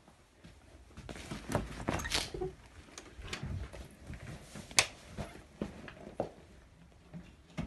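Scattered knocks, clicks and rustles of someone walking through carpeted rooms while holding a phone camera: handling noise and footsteps, with one sharp click about five seconds in.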